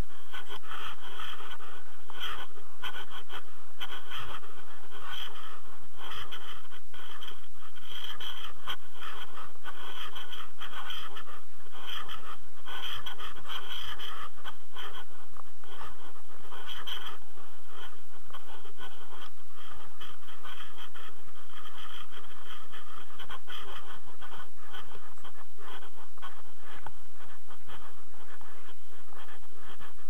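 Steady rushing wind noise on an action camera's microphone: a continuous scratchy hiss that flickers without pause.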